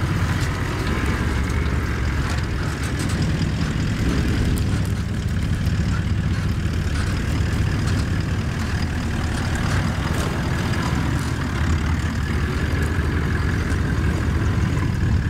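Engines of two Toyota LandCruiser 70-series four-wheel drives running as they drive slowly across grass: a steady low drone with no change in pitch.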